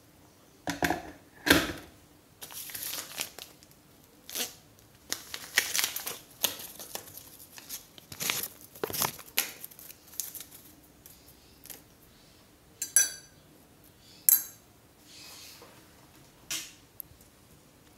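Making a cup of tea by hand: a paper tea-bag sachet torn open and rustled, with short knocks and a metal teaspoon clinking sharply against a ceramic mug twice, a little over a second apart, past the middle.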